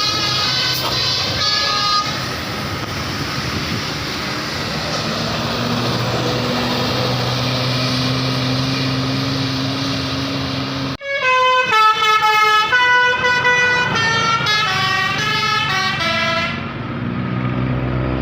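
Indonesian bus 'telolet basuri' musical air horns playing melodies of quick stepped notes: a short stretch at the start, then a loud run of about five seconds after a sudden cut near the middle. In between and at the end there is a bus engine's low drone with traffic noise.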